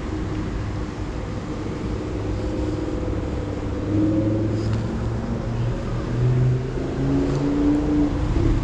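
A motor vehicle's engine running nearby, its note shifting up and down in pitch and growing louder about four seconds in, over the steady rush of a fast-flowing river.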